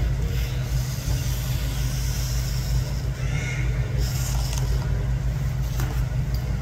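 A steady low hum, like a machine running, with a few short hissing noises over it.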